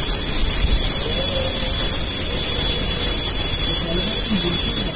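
A steady, loud hiss of outdoor background noise, with faint low voices about four seconds in.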